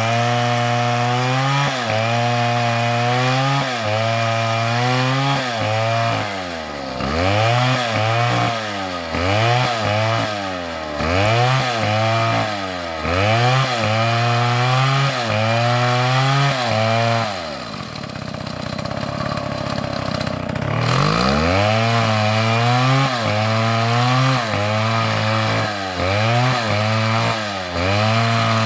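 Chainsaw cutting wood, its engine held at high revs. From a few seconds in, the pitch repeatedly dips and climbs back about once a second as the throttle works in the cut. Near the middle the saw drops to idle for a few seconds, then revs back up.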